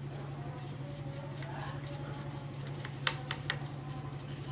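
Mitsubishi sewing machine running at a steady speed, its mechanism ticking rapidly and evenly over a low hum, with three sharp clicks about three seconds in.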